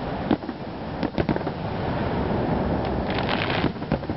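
Aerial fireworks going off: a few sharp bangs in the first second and a half, then a rapid spell of crackling about three seconds in, over steady background noise.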